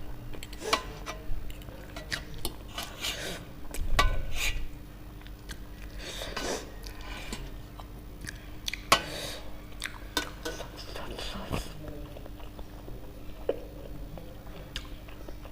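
Mukbang eating sounds: a utensil clicking and scraping against a bowl of ramen noodles, with chewing between the clicks. The sharpest clicks come about four seconds in and again near nine seconds.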